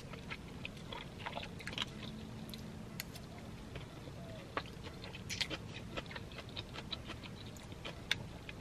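Close-up chewing and soft wet mouth clicks of a person eating chow mein noodles and chicken, scattered irregular clicks throughout.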